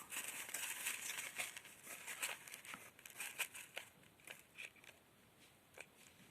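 Light crinkling and rustling of a small plastic bag: quick scratchy crackles, busy for about the first four seconds and then thinning out to a few faint ones.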